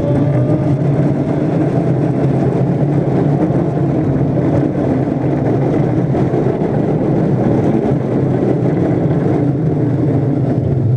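Roller coaster car running along its steel track, a loud steady rumble of the wheels.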